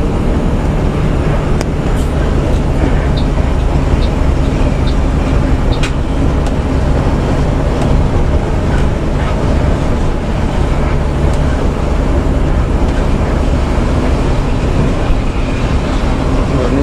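Intercity coach's diesel engine and road noise heard from inside the driver's cabin while cruising, a steady low drone with a few faint clicks.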